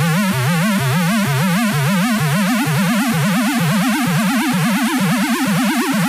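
Electronic trance music built on an ambulance-siren sound: a warbling, siren-like synth tone that climbs steadily in pitch while its wail speeds up, like a build-up.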